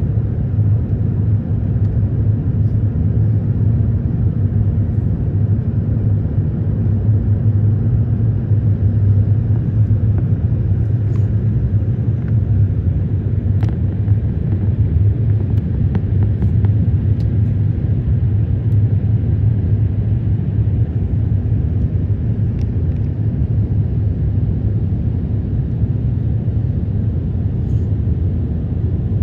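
Steady low rumble of engine and airflow noise heard inside the cabin of an Airbus A350-900 airliner, with its Rolls-Royce Trent XWB engines, as it descends on approach.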